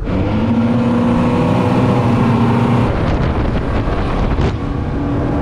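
Outboard motor running at speed as a motorboat travels across the water, a steady engine tone. About three seconds in the tone drops away and wind buffeting the microphone takes over.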